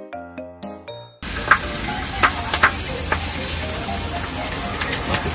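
A short jingle of chiming musical notes for about the first second, then a steady sizzling hiss of food frying at the stall, with a few light clicks over it.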